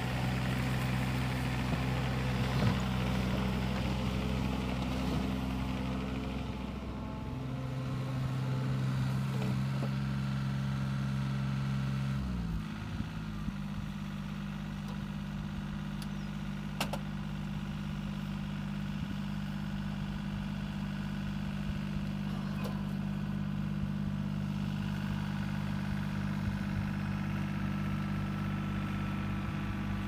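Mini excavator's diesel engine running steadily. About twelve seconds in, the engine note drops and then settles at a new steady pitch.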